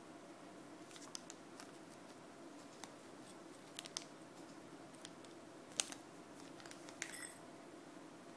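Faint crinkling and light clicks of a plastic packet of fishing hooks being handled and items shifted on a tabletop, the sharpest click about six seconds in and one that rings briefly about a second later, over a steady low room hum.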